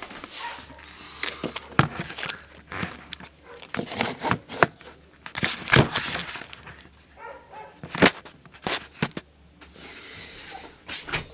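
Handling noise: a string of irregular knocks and clicks with paper crinkling, as the camera and things on a cluttered drawing table are moved about.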